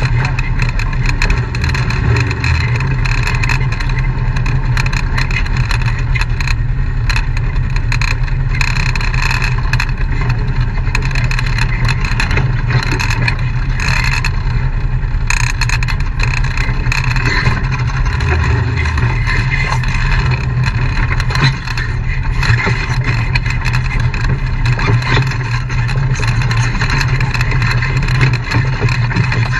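Off-road vehicle engine running steadily at low trail speed, with frequent rattles and knocks as the vehicle crawls over a rocky trail.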